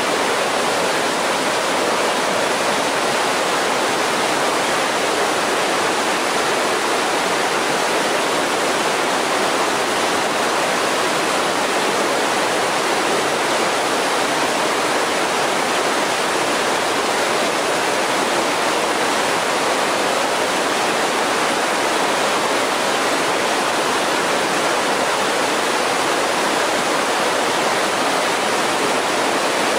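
Rocky mountain creek rushing through white-water rapids over boulders: a steady, unbroken rush of water with no change across the stretch.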